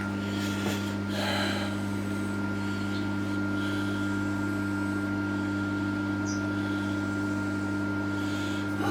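Steady electric machinery hum with a thin high whine over it, and a little soft handling noise about a second in.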